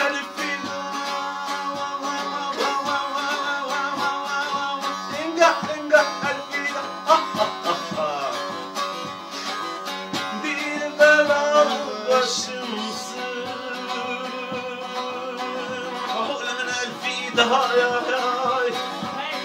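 Bağlama (Turkish long-necked saz) played solo with a pick: fast strumming and a moving melody line over a steady low drone note.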